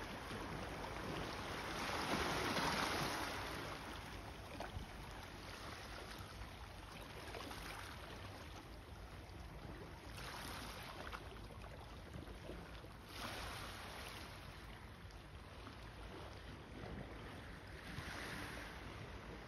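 Small sea waves washing over a pebble shore, a soft hiss that swells and fades every few seconds, loudest about two seconds in.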